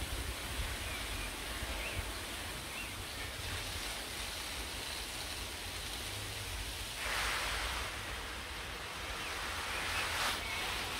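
Garden hose spray nozzle hissing as water sprays onto the plants, with louder rushes of spray about seven and ten seconds in. Low wind rumble on the microphone underneath.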